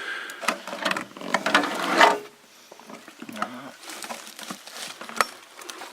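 A geocache box being handled and opened, its latch and lid clicking and the small items inside rattling: a run of clicks and knocks, loudest about two seconds in.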